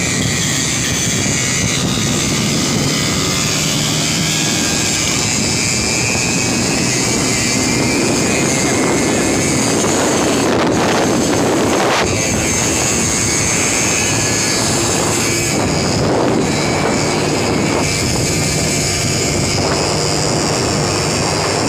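Small motorcycle-type engine held at high revs under full throttle, heard from on board at speed with wind rushing over the microphone. The sound stays loud and steady.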